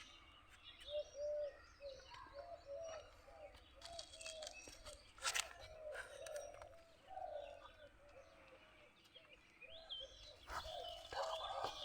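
Birds calling and chirping, many short calls overlapping, low cooing notes under higher chirps, with a few short knocks.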